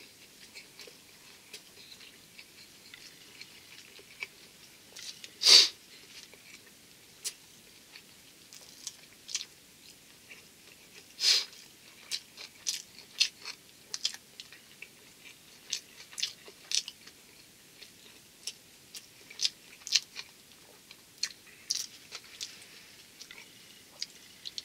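A person chewing and swallowing food fast, close to the microphone: a scatter of faint, irregular mouth clicks and smacks, with two louder short hissing breaths about five and eleven seconds in.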